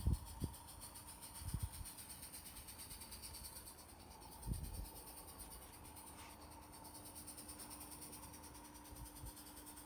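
Faint, steady high-pitched chirping of insects, with a few short low thumps in the first couple of seconds and again about four and a half seconds in, and a faint steady low hum joining about six seconds in.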